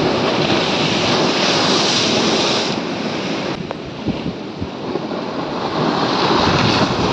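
Rough storm surf breaking and washing over a concrete sea wall, in a steady rushing hiss. It is loudest in the first few seconds, eases in the middle and swells again near the end.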